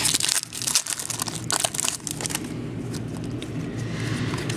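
Trading-card packs and cards being handled, the wrappers crinkling in a rapid run of crackles that stops about two and a half seconds in, leaving a steady low hum.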